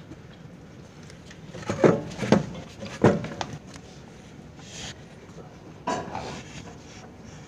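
A few sharp knocks and clatters over steady room noise: three louder ones about two to three seconds in, a fainter one near the middle, and another about six seconds in.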